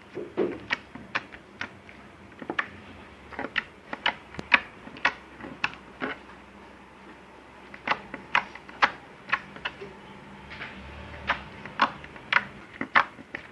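Slime being worked by hand, making sharp clicking pops at an uneven pace of about two a second, with a short pause about halfway through.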